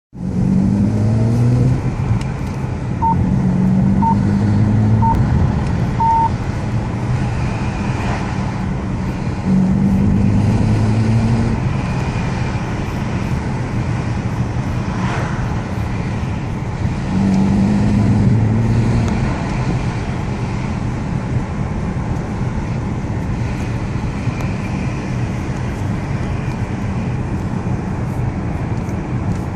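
BMW E90 325i's N52B25 inline-six engine running at about 1500–2500 rpm and stumbling with misfires, the sign of failing spark plugs. The engine note rises in several pulls. Four short beeps about a second apart come a few seconds in.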